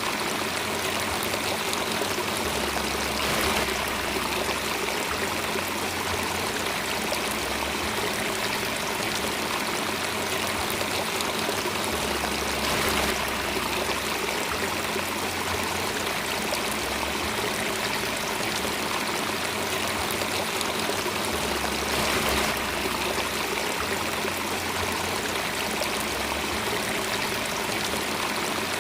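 Steady running water of a stream, a continuous rushing and trickling, swelling slightly about every nine seconds.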